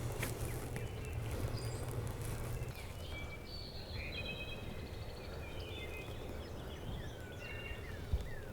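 Small songbirds chirping and singing in short high notes that start about three seconds in, over a steady low outdoor rumble.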